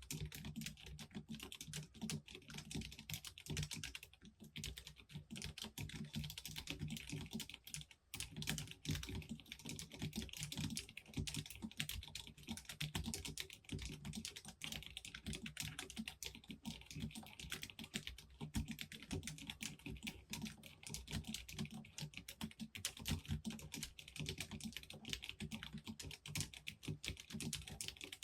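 Continuous typing on a low-profile mechanical keyboard with soldered Huano low-profile red linear switches: a dense stream of soft, quick key clacks, pausing briefly twice.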